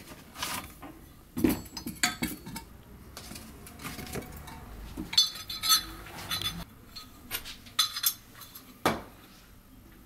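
Metal tools and parts clinking and rattling as a workshop tool-chest drawer is rummaged through and pieces are picked up and set down: a string of separate clinks and knocks.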